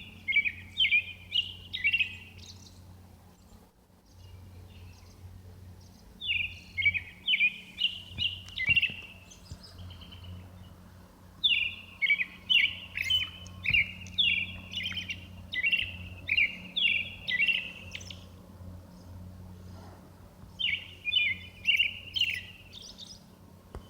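American robin singing at night: runs of short, falling whistled notes, about two a second, in four phrases with pauses of a few seconds between them. The longest phrase lasts about six seconds. A steady low hum runs underneath.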